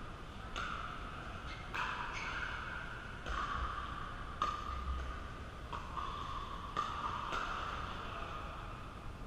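Pickleball paddles hitting the plastic ball in a doubles rally: a string of sharp pops, roughly one every second or so, each ringing on in the echo of a large indoor hall.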